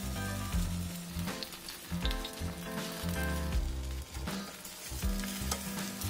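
Oil sizzling and crackling under maesaengi (seaweed) pancakes frying on low heat in a nonstick pan, with background music and a steady bass line playing over it.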